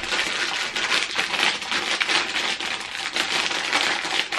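Plastic packet of Haribo Softies sweets crinkling continuously as it is squeezed and felt in the hands.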